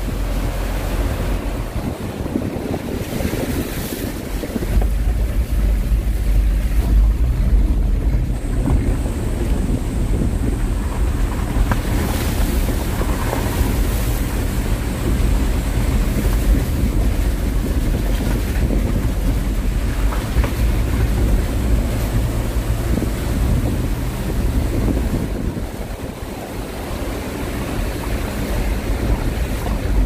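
Steady rush of a rain-swollen mountain stream in spate, mixed with the low rumble of a car driving slowly beside it and wind buffeting the microphone.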